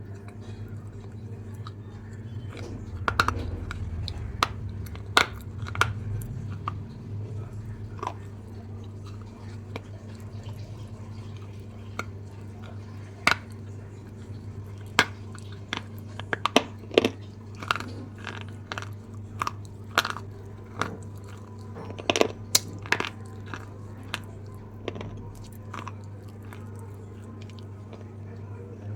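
Close-up crunching and chewing of a red apple: irregular sharp crunches, with a few quick clusters, over a steady low hum.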